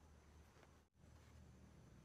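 Near silence: a faint steady low hum, cutting out completely for a moment about a second in.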